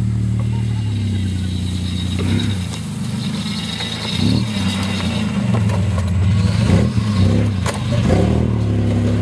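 1991 Chevrolet S-10 Blazer's engine running and revving as the truck drives over rough, grassy ground. The engine note holds steady at first, then rises and falls repeatedly from about four seconds in, with a few knocks and clatters from the truck over the bumps.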